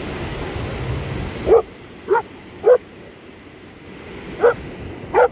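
A dog barking: five short barks, three in quick succession and then two more a couple of seconds later, over a steady rush of wind and surf that fades about a second and a half in.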